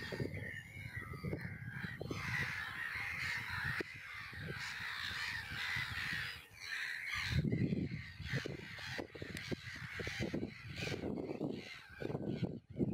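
Birds calling, mostly in the first seven seconds. Low, uneven rumbling outdoor noise grows louder after about seven seconds.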